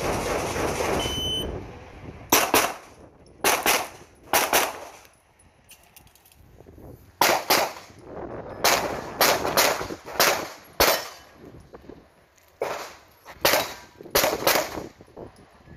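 Pistol shots fired in quick pairs, double taps a fraction of a second apart, with short pauses between groups as the shooter moves between firing positions. About twenty shots in all, the last group a fast run of three.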